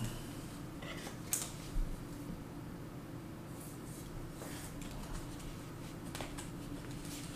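Trading cards being handled at a table: a few short, sharp clicks and rustles, spaced a second or more apart, over a steady low hum.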